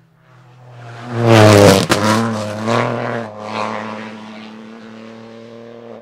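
A rally car approaching and passing at full speed, at its loudest and dropping in pitch about a second and a half in, with a sharp crack just after. The engine note then rises and falls a few times as it goes away, fading.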